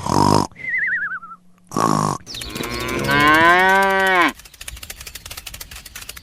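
A cow mooing once: a long call of about two seconds that drops in pitch as it ends, with rapid ticking under it and after it. Before the moo come two short bursts and a brief wavering whistle-like tone that falls in pitch.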